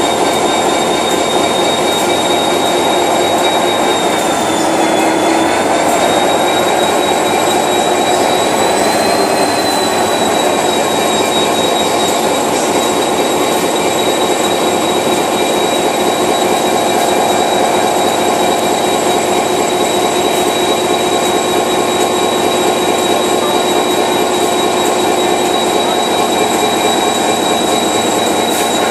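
EMD 12-645E3C turbocharged V12 two-stroke diesel running steadily after start-up, with a loud, high turbocharger whine over the engine's drone. The whine dips slightly about four seconds in and rises again around nine seconds.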